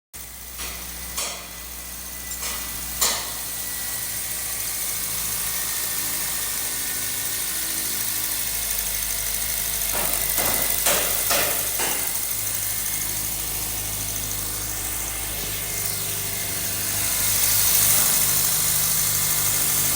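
Car engine idling with a spark-plug misfire, with a few sharp clicks in the first seconds and again about halfway through. A hiss swells near the end.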